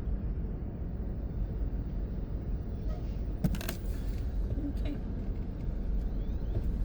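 Low, steady rumble of an idling vehicle engine, with a few short clicks, the loudest about three and a half seconds in.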